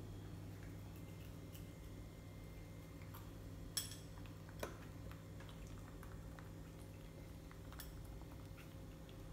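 Quiet room tone with a steady low hum and scattered faint ticks, and two sharp clicks a little under a second apart near the middle: a stainless steel chopstick in a baby monkey's hand knocking on a tiled floor.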